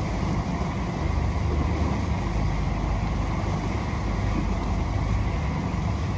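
Speed boat's engine running steadily at low speed under way, with a constant low rumble and no change in pitch.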